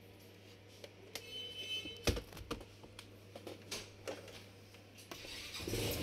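Faint handling noises of a laptop being moved and opened on a workbench: scattered light clicks and knocks, the loudest about two seconds in, with some rustling near the end over a steady low hum.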